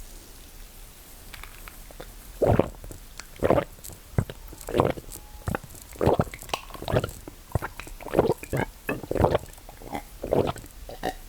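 Close-miked mouth sounds of eating and drinking: a run of short, wet gulps and swallows coming about once a second, starting a couple of seconds in.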